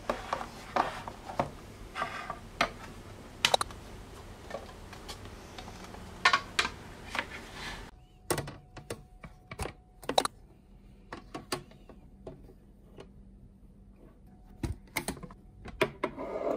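Irregular taps, clicks and light knocks of a cardboard paint box and a hinged watercolor palette being handled and set down on a wooden table.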